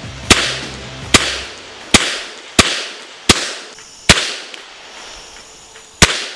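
Seven shots from a Glock pistol, each a sharp crack with a short echo trailing off. Six come in a steady string about one every three-quarters of a second, then a pause of about two seconds before the seventh.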